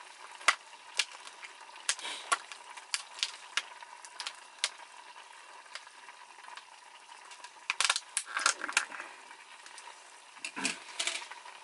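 Utensils clicking and tapping against a pot of motsunabe hot pot over a steady sizzling hiss as it simmers, with a flurry of clicks about eight seconds in and another near the end.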